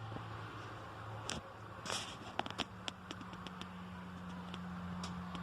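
Wood bonfire crackling, with irregular sharp pops scattered through, over a steady low hum.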